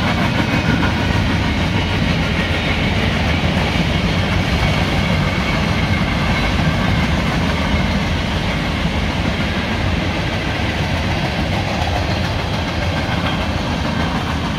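Freight cars of a mixed freight train, mostly tank cars and covered hoppers, rolling past at speed: a steady rumble of steel wheels on the rails that eases slightly in loudness near the end.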